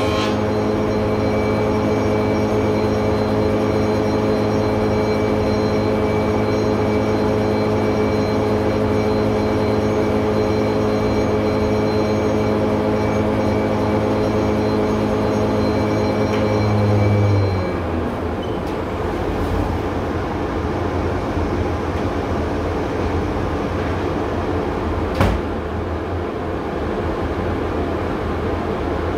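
Spindle moulder running with a steady hum and whine, switched off about two-thirds of the way through and winding down quickly, while the bagged workshop dust extractor keeps running with a steady rushing noise. A single sharp knock near the end.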